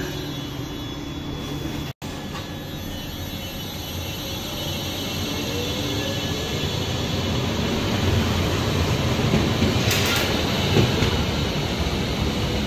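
Yellow-and-red AVG Stadtbahn tram-train pulling away in an underground tunnel station. Its electric drive whines up in pitch as it accelerates and the running noise grows louder, with a short hiss near the end.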